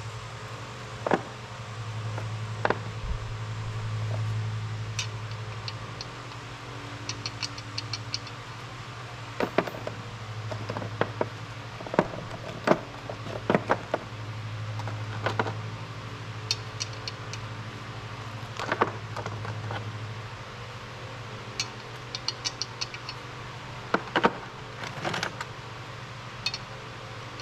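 Metal sockets and hand tools clinking and rattling as they are picked through, in irregular sharp clicks and clinks, over a steady low hum.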